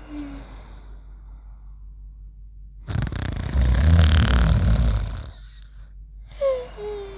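Cartoon snoring. A whistled out-breath sliding down in pitch trails off at the start. About three seconds in comes a loud, rasping snore lasting about two seconds, and near the end a second whistle falls in pitch.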